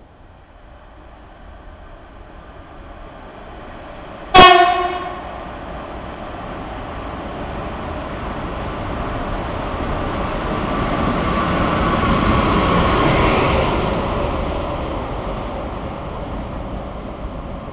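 SNCF Fret locomotive gives one short, loud horn blast about four seconds in. It then runs through the station with a rumble that grows louder to a peak about two-thirds of the way through and fades as it moves off.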